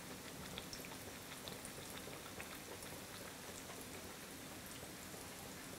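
Chirote pastries deep-frying in oil on low heat: a soft, steady sizzle with scattered small crackles.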